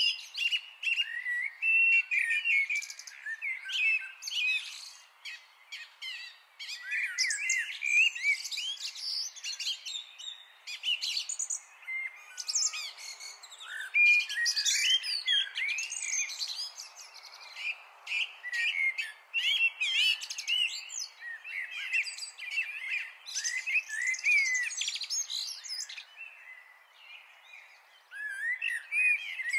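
Many small birds chirping together in a dense, overlapping chorus of quick, high calls that never lets up.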